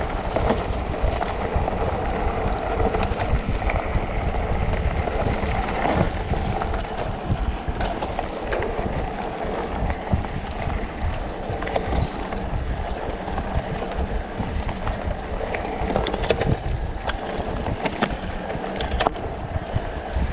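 Specialized Turbo Levo electric mountain bike riding fast over a dirt forest trail: tyres rolling on packed dirt with wind buffeting the microphone, and scattered knocks and rattles from the bike over bumps.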